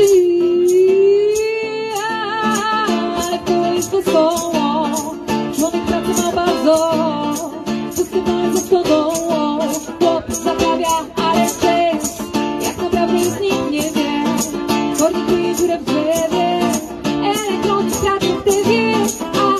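Live song: a woman singing in Polish into a microphone, accompanied by an electro-classical guitar strummed in a steady rhythm.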